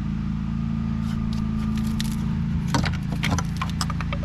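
Light clinks, rattles and scrapes of parts and tools being handled in a car's engine bay, clustered a couple of seconds in, over a steady low hum.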